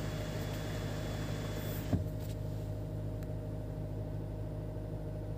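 Steady cabin hum of a 2022 Range Rover Evoque standing with its 2-litre engine idling and the climate fan blowing. A single click about two seconds in, after which the hiss drops lower.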